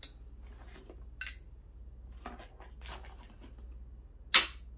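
Small brass scrap fittings clinking and knocking together as they are handled and sorted, with one louder clank about four and a half seconds in.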